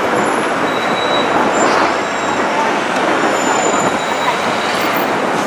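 Steady city street traffic noise, a dense even roar of passing cars and cabs with a few faint high squeals.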